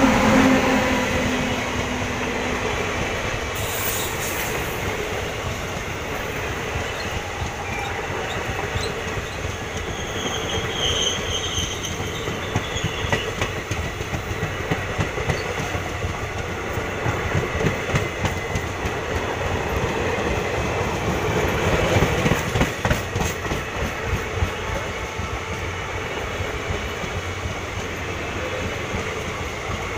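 Indian Railways WAP7 electric locomotive and its passenger coaches running past close by at speed: a steady rush with rapid wheel clatter over the rail joints. A low hum from the locomotive fades in the first few seconds, and the noise swells briefly about two-thirds of the way through.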